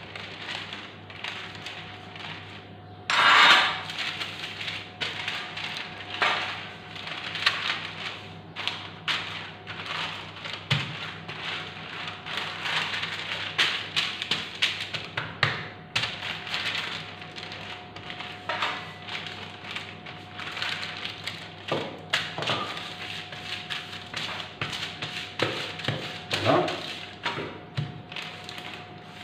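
Wooden rolling pin rolling shortcrust pastry dough between sheets of baking paper on a stone worktop: repeated rustling and crinkling of the paper with soft knocks of the pin, as the dough is rolled out. A louder crinkle of the paper comes about three seconds in.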